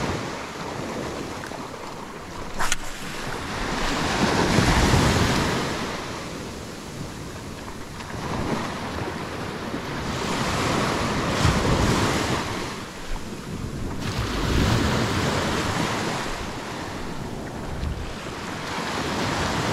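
Surf washing up a beach, the noise swelling and fading every few seconds as waves break and run in, with wind buffeting the microphone. Two sharp knocks stand out, one a few seconds in and one about halfway through.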